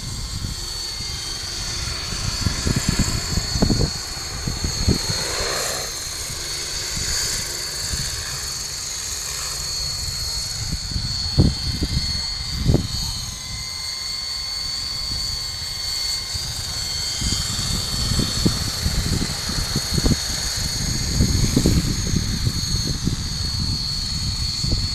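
Electric coaxial model helicopter with two contra-rotating three-blade rotors, flying: a steady high whine from its brushless motor and drive, over rotor noise. Irregular low rumbling runs underneath, heavier near the start and the end.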